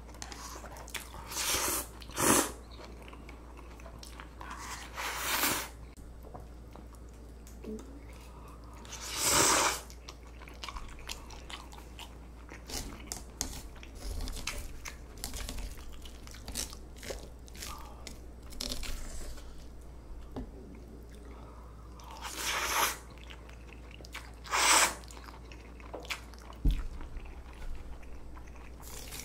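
Close-miked eating of cold noodles and crunchy kimchi: steady chewing and crunching with many small clicks, and about six louder, noisier bites or slurps spread through.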